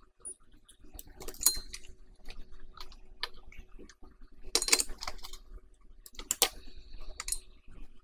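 Soldering tools working on a laptop motherboard while corroded components are desoldered: small clicks and taps, with three louder bursts of crackling about one, four and a half and six and a half seconds in.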